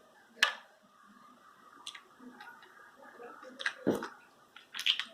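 Runny, deactivated slime being stirred and handled: scattered wet clicks and squelches, with a dull knock about four seconds in and a quick run of clicks near the end.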